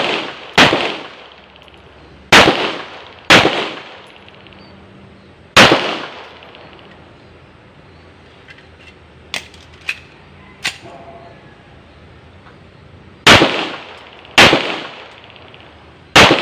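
Seven shots from a Rock Island Armory TAC Ultra FS HC 9 mm pistol, each a sharp crack with a short echoing tail: four spaced shots in the first six seconds, then three more near the end. About halfway, between the two groups, there are three fainter sharp cracks.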